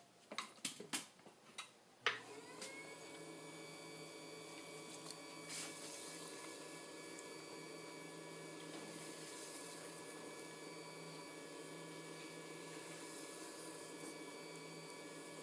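A few short knocks as clay is set down on the wheel head, then about two seconds in an electric potter's wheel starts and runs with a faint, steady motor hum.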